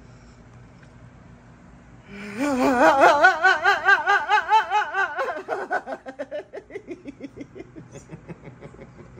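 A woman lets out a long, wavering, quivering vocal sound, then breaks into rhythmic laughter that fades away. It is the kind of involuntary noise a person makes when they let go of held tension under massage.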